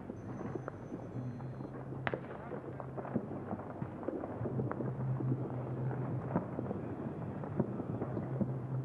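Distant fireworks and firecrackers popping and crackling, many scattered sharp pops with one sharper crack about two seconds in, over a steady low hum.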